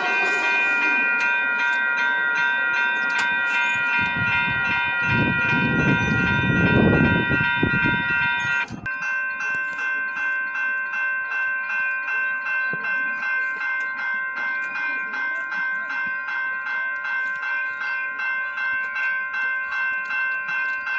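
Railway level-crossing warning bell ringing in steady, rapid strokes. From about 4 to 9 s an approaching commuter train rumbles past the crossing; after an abrupt cut the bell keeps ringing.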